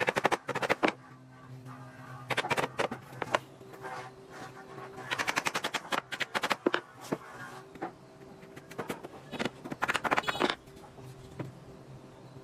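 Woodworking tool work: about five short bursts of rapid rattling knocks, each lasting under a second, over soft background music.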